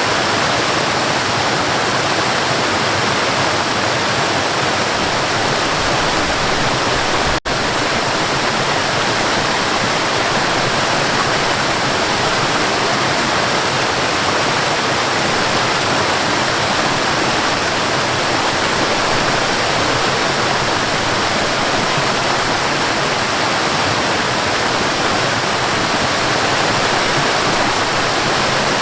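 Waterfall rushing steadily, a dense even roar of falling water, with a split-second dropout about seven seconds in.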